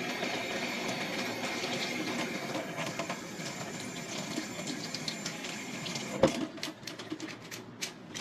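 Kitchen faucet running as hands are washed under it in a stainless steel sink; the flow stops about six seconds in with a single sharp knock, followed by several light clicks.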